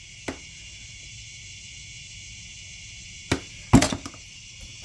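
Metal hand tools knocking and clanking against each other as they are rummaged in a plastic tote. There is a single knock just after the start, then a louder cluster of clanks about three and a half seconds in, over a steady high hiss.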